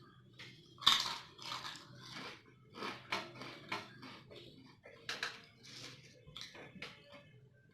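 Potato chips crunched and chewed close to the microphone: a run of crisp, irregular crunches, the loudest about a second in.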